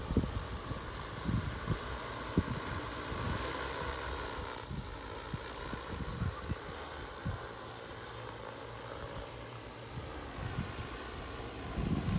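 Agricultural spraying drone's rotors humming steadily, the pitch wavering slightly, with wind rumbling on the microphone at the start and again near the end.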